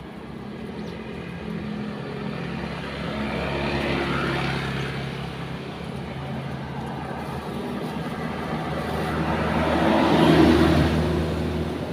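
Motor vehicles passing on a road: a steady engine hum with tyre noise that swells twice, the louder pass about ten seconds in.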